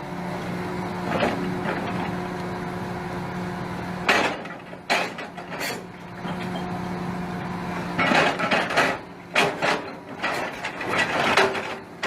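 Demolition: a heavy machine's engine hums steadily while wood cracks and debris crashes, first a couple of sharp crashes and then a cluster of them in the last few seconds.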